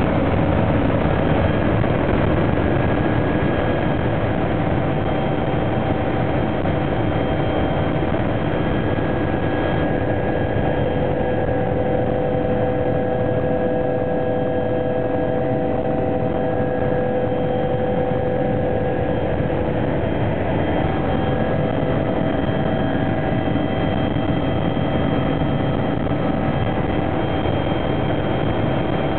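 Helicopter in flight heard from inside the cabin: loud, steady engine and rotor noise with several steady whining tones from the turbine.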